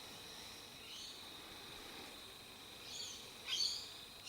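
Birds chirping, a few short calls about a second in and again near the end, over a faint steady high-pitched tone.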